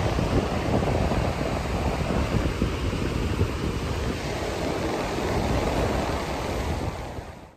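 Wind buffeting the microphone over the wash of waves breaking on a rocky shore, fading out near the end.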